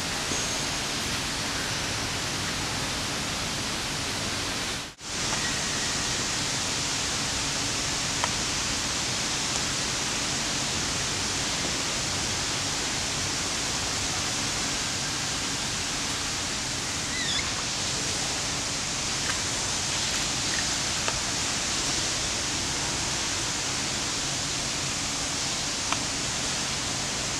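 Steady rushing hiss of running water, broken by a brief dropout about five seconds in, with a few faint clicks.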